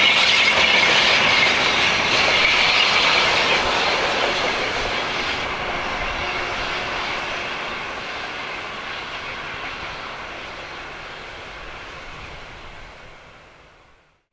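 Passenger coaches of a train rolling along the track and away. The rumble fades steadily and dies out near the end.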